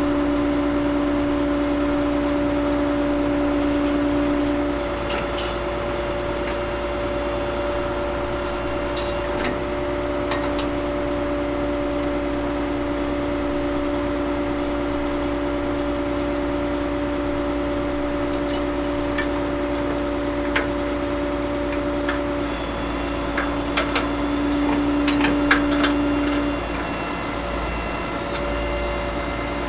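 Heavy equipment engines running steadily, making a constant hum with a steady tone. A few sharp knocks break through it, several in a cluster toward the end.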